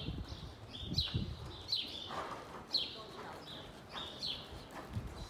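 A small bird chirping over and over, a short falling chirp about once a second, with the soft hoofbeats of a mule moving on sand arena footing underneath.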